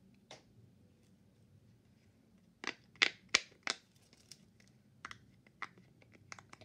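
Small silicone pop-it fidget toy being pressed, its bubbles popping with sharp, irregular pops, a quick run of four about three seconds in, described as really loud.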